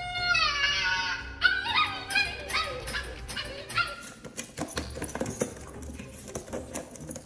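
A dog crying out: one long, drawn-out cry that falls slightly in pitch over about a second and a half, then a few shorter cries.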